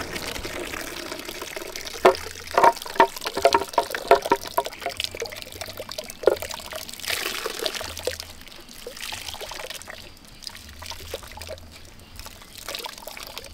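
Coconut milk squeezed from grated coconut in a plastic strainer, pouring and dripping into a large aluminium pot of liquid for rice and peas. A run of sharp splashes about two seconds in gives way to a softer trickle.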